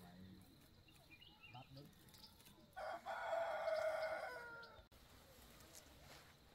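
A rooster crowing once: a single call of about two seconds, starting about three seconds in.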